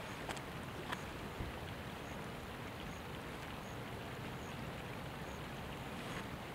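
Old Faithful geyser erupting, heard from a distance as a steady rushing hiss of water and steam. A faint, short, high chirp repeats about once a second, and a few soft clicks come in the first second or so.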